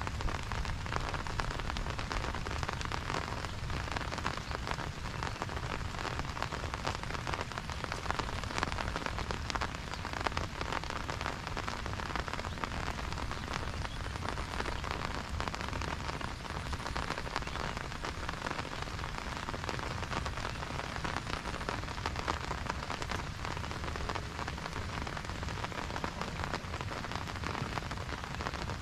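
Steady rain falling, a dense patter of many drops at an even level throughout.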